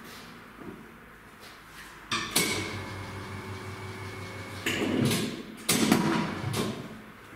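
Car tyre being handled on a tyre changer: knocks and clunks of the tyre against the machine, with a steady machine hum for a couple of seconds in the middle and a few loud knocks near the end.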